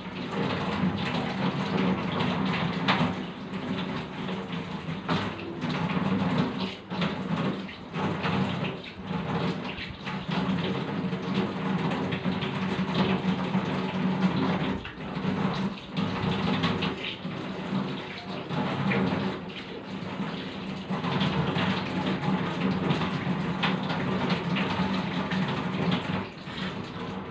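Tap water running and splashing while hands lather soap and wash the face, with many small irregular splashes and rubbing strokes.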